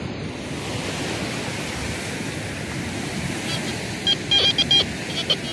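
Steady surf and wind noise, and in the last couple of seconds a run of short, high beeps from a TX-850 metal detector as its coil passes over the dug spot, signalling a target that turns out to be aluminium foil.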